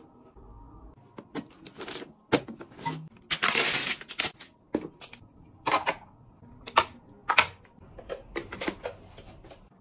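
Plastic bathroom gadgets being handled, with irregular sharp clicks and taps. About three and a half seconds in comes a louder, longer rustling tear as a plastic film seal is peeled off a container.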